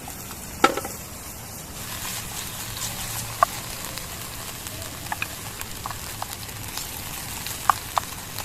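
Shallots frying in hot oil in a pan, a steady sizzle that picks up about two seconds in, with scattered sharp clicks and taps of a utensil on the pan and one loud knock near the start.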